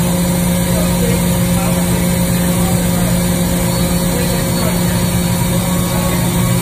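SNK HPS-120B five-axis CNC horizontal profiler running under coolant: a steady hum with a low tone and an even spray-like hiss, without breaks.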